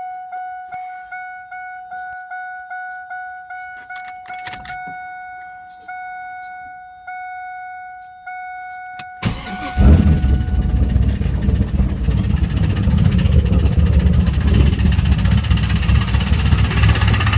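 A car's dashboard warning chime dings steadily about twice a second, then more slowly. About nine seconds in, the Camaro Z28's LS1 V8 cranks, catches and keeps running loudly. The owner suspects the engine has a spun bearing.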